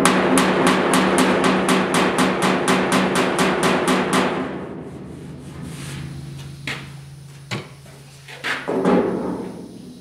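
Hammer tapping quickly on the steel sheet-metal panel of a pickup box, about five blows a second for some four seconds, then a few single taps. The blows are knocking down a high spot in the panel that has just been heat-shrunk, bringing it flush.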